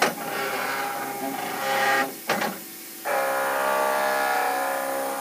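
CNC milling machine's axis drive motors whining in steady tones as they move the table during an automatic touch-probe routine finding the centre of a bored hole. The whine stops for about a second a little after two seconds in, with a couple of clicks, then starts again at a different pitch.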